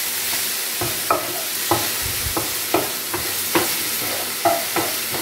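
Sliced mushrooms sizzling as they fry golden-brown in a non-stick frying pan, stirred with a wooden spatula: a steady sizzle with irregular scrapes and taps of the spatula against the pan, about every half second.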